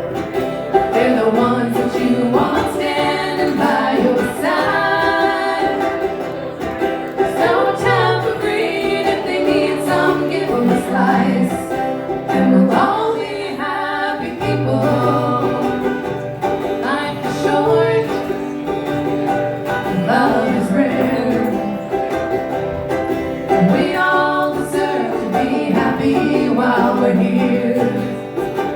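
Live acoustic song: a singing voice over a strummed plucked-string accompaniment, playing continuously.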